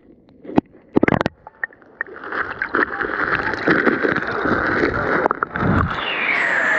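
A few knocks and splashes, then from about two seconds in a steady wash of moving water in a waterfall pool.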